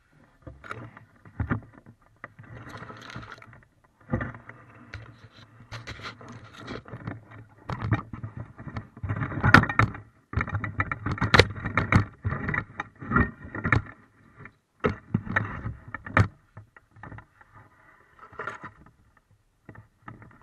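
Irregular rustling, knocking and scraping close to the microphone as a landing net is handled among bankside reeds and grass, with water sloshing as the net is worked in the river. The clatter is busiest through the middle and thins out near the end.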